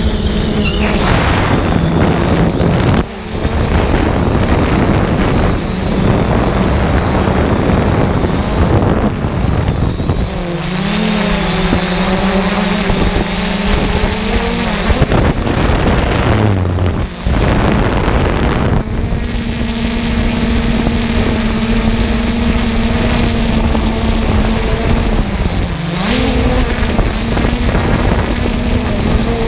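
A quadcopter drone's motors and propellers, heard from the drone's own onboard camera: a steady hum over a rushing noise, shifting in pitch several times as the drone manoeuvres and descends toward the ground.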